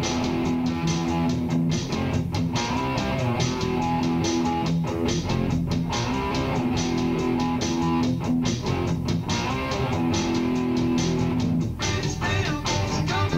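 Instrumental music: guitar playing over a bass line, with long held notes underneath and no voice.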